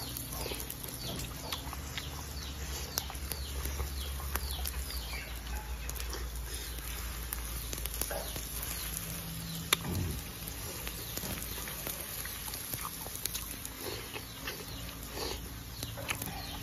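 A person chewing and smacking while eating, with many short mouth clicks and one louder click about two-thirds of the way through.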